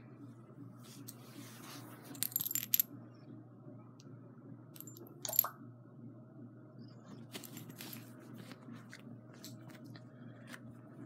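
Metal tags on a dog's collar clinking briefly about two seconds in, again near the middle and once more soon after, over soft rustling of fur close to the microphone.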